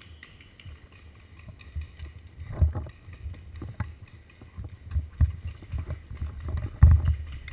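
Footsteps on dry dirt picked up through a body-worn camera: irregular low thumps with gear knocking, few and soft at first, then faster and louder from about two seconds in as the pace picks up.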